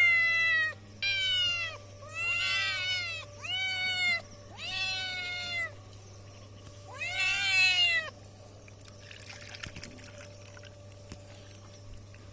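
A domestic cat meowing repeatedly: about six loud meows in close succession, each rising and then falling in pitch, ending about eight seconds in.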